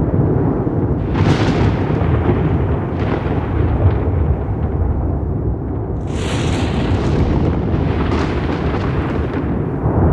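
Rolling thunder: a deep, continuous rumble with sharp cracks breaking through about a second in, around three seconds, most strongly around six seconds, again near eight seconds and at the very end.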